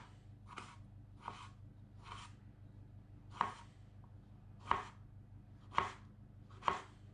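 Knife cutting a tomato: about eight short cutting strokes at uneven intervals, over a steady low hum.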